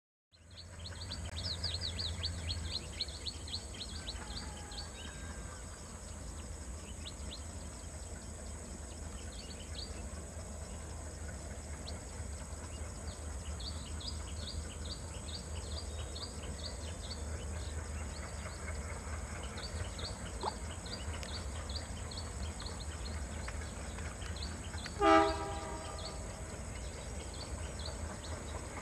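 Open-air trackside ambience: a steady low rumble with runs of short, high chirps. About 25 seconds in, one short, loud blast of a diesel locomotive's horn from the approaching train.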